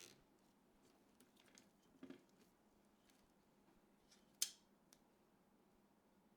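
Quiet handling of PC parts during assembly: a few short clicks and brief rustles, the sharpest click about four and a half seconds in.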